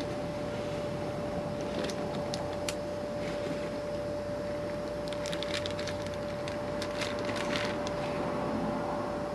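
A plastic bag being handled and crinkled, with a dense run of crackles from about five to eight seconds in and a few scattered clicks earlier. A steady hiss and a constant hum sit underneath.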